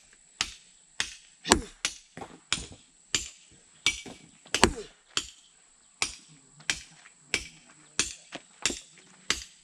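Repeated chopping blows from a hand tool, evenly paced at a little under two strikes a second, some strikes heavier than others.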